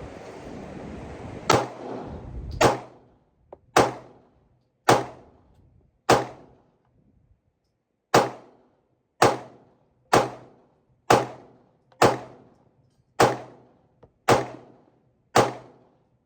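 Pistol shots fired one at a time, about one a second, thirteen in all with a longer pause after the fifth, each with a short echoing tail.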